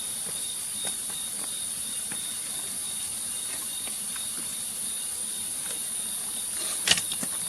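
Steady, high-pitched chorus of insects, with a few faint ticks and one sharp click about seven seconds in.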